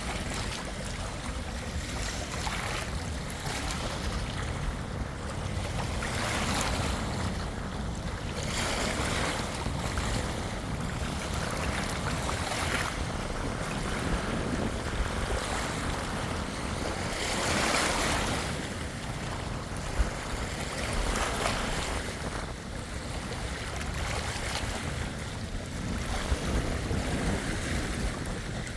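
Waves washing in as a steady hiss that swells and falls every few seconds, with wind rumbling on the microphone.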